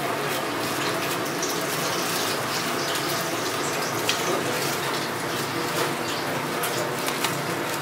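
Steady rushing, hissing kitchen noise, with a few light clicks of a knife and food being moved in a stainless steel bowl.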